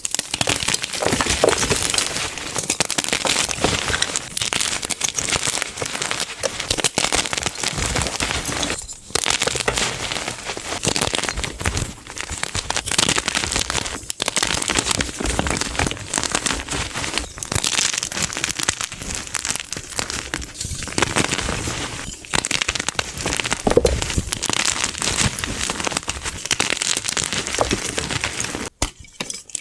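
Gym chalk being crushed, a dense run of crisp crunching and crackling with a few brief pauses.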